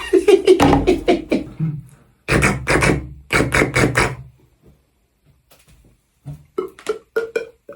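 Beatboxing: rapid clusters of sharp percussive mouth hits and clicks, a pause of about two seconds, then a few scattered short pops, some with a pitch, near the end.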